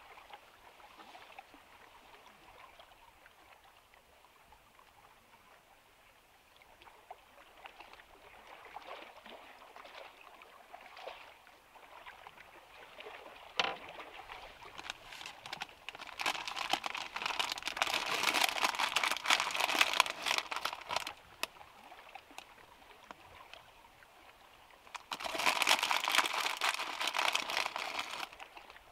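Plastic bag crinkling and rustling in two loud spells, about five seconds and then about three seconds long, as a topping is shaken out of it; a single sharp click comes shortly before the first spell.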